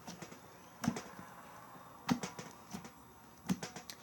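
Clear slime being squished and worked by hand, giving a few short clicks and pops about a second apart.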